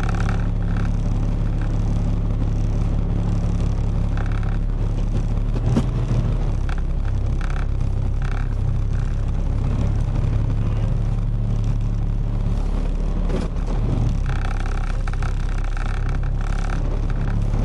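Box truck engine drone and road noise heard from inside the cab while driving, a steady low hum. A few knocks or rattles come about six and about thirteen seconds in.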